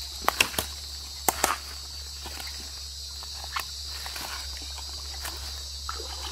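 Footsteps in sandals crunching through dry leaf litter and twigs, with several sharp snaps in the first second and a half, over a steady high buzz of insects.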